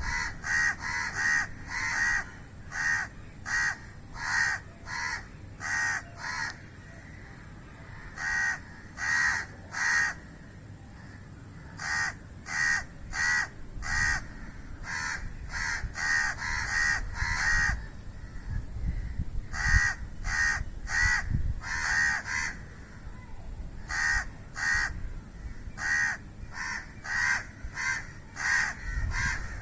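Crows cawing: runs of short caws, about two a second, broken now and then by pauses of a second or two.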